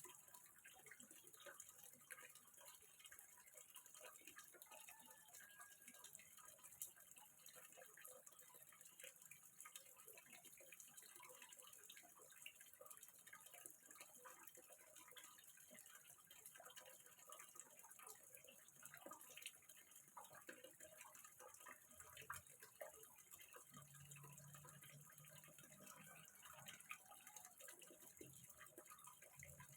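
Faint water trickling and dripping into a small fish pond, a steady soft splashing made up of many small drips.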